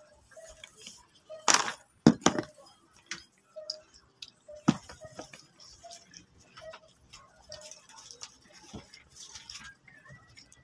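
Scattered clicks, knocks and rustles of children handling and eating fries and snacks at a table. The loudest are a few sharp knocks between about one and a half and two and a half seconds in, and another near five seconds.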